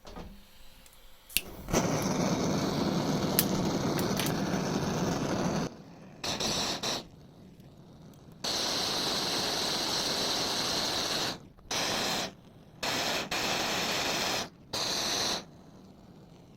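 Gas blowtorch lit with a sharp click, then burning with a loud steady hiss for about four seconds before being cut off and on again in several shorter bursts, heating a brass ball valve body for soldering.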